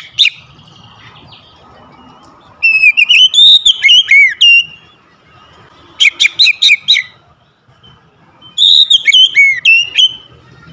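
Oriental magpie-robin (kacer) singing loud whistled phrases. There is a brief note at the start, then three longer bursts of rising and falling notes a couple of seconds apart.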